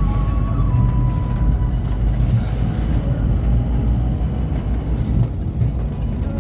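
Steady low rumble of a moving vehicle. A short run of held musical notes fades out in the first second or so.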